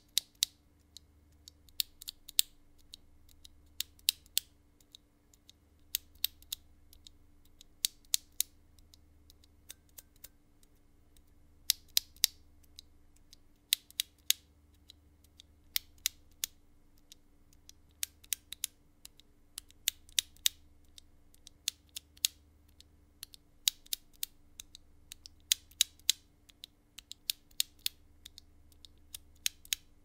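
Bare, unlubed linear mechanical keyboard switches, among them Kailh Red and JIXIAN Holy Dog, pressed and released between the fingertips one after another. Each press gives a few sharp plastic clacks as the stem bottoms out and springs back, coming in small clusters about every two seconds.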